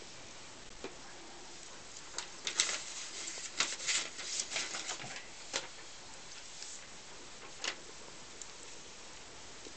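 Baby hedgehogs lapping milk from a shallow dish: irregular small wet clicks, coming in a busy run between about two and six seconds in, with a couple of stray ones either side, over a faint steady hiss.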